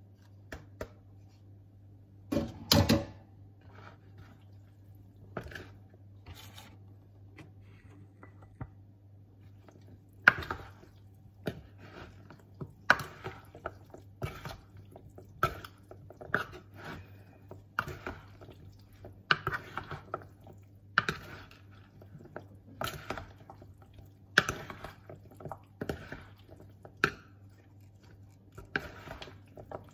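Salad being mixed in a large bowl with a pair of salad servers: the servers scrape and knock against the bowl about once a second. Near the start there is a louder clatter as food is tipped into the bowl from a colander, all over a low steady hum.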